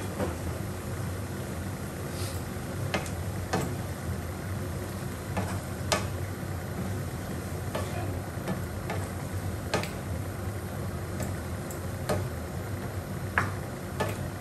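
Wooden spatula stirring squid in a nonstick frying pan, giving scattered sharp taps and scrapes against the pan, over a steady frying sizzle and a low hum.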